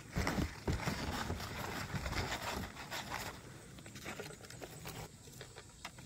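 Rustling and scraping of vegetation and gear being handled close by, with scattered clicks, busiest in the first three seconds and sparser after.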